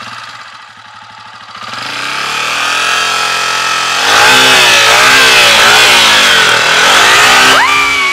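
Four-stroke Honda CRF trail bike engine revved hard, its pitch climbing and dipping repeatedly as the throttle is worked to get the bike over an obstacle on the trail.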